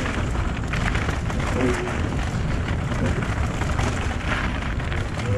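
Wind buffeting the camera microphone and mountain-bike tyres crunching over a gravel trail at speed, with the bike rattling over the bumps.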